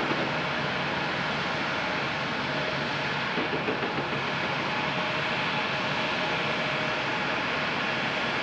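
Jet airliner engines running steadily, a constant rushing noise with a faint tone held underneath.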